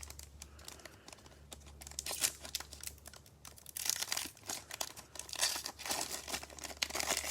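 Foil trading card pack wrapper being torn open and crinkled, in irregular crackles that start about two seconds in. A steady low hum runs underneath.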